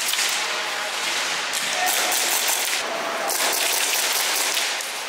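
Airsoft guns firing in long rapid full-auto bursts, a dense fast crackle with short breaks between bursts.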